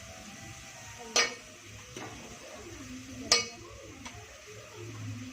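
Metal cooking utensil clinking against a pot twice, about two seconds apart, with softer stirring and scraping between the clinks.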